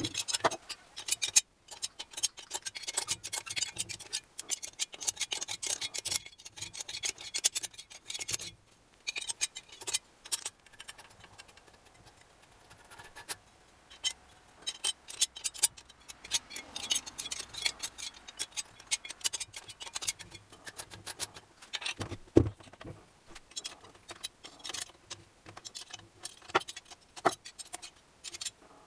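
Metal hand tools and engine parts clicking, clinking and rattling against each other, in dense runs of rapid clicks with a quieter pause partway through and one sharp knock about 22 seconds in, as an NSU Pretis 175 engine is taken apart.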